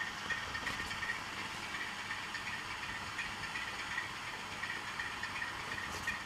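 Diesel engine sound from a model locomotive's DCC sound decoder, played through its small onboard speaker as the loco runs slowly. The sound is steady, with a light, rapid ticking over it.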